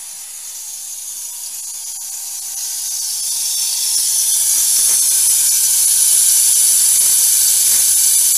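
Ultrasonic sonotrode running in a tub of liquid during a cavitation erosion test: the cavitating liquid at the horn tip gives a loud, high-pitched hiss and sizzle. The hiss grows louder over the first few seconds and then holds steady, with a faint low hum joining about three seconds in.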